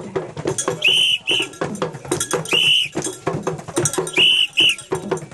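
A whistle blown in a rhythm of short double blasts, three pairs about a second and a half apart, over a steady run of rhythmic percussion knocks.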